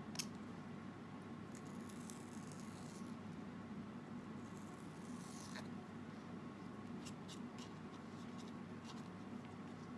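Faint, scattered snips, clicks and soft rustles of folded banana leaf being cut into pointed garnish shapes, over a steady low hum.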